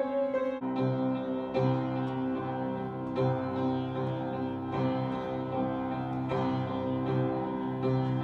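Out-of-tune upright piano playing slow, sustained chords, a new chord struck about every second and a half, with a low bass note joining under a second in. The detuning gives it a jangly, harpsichord-like ring.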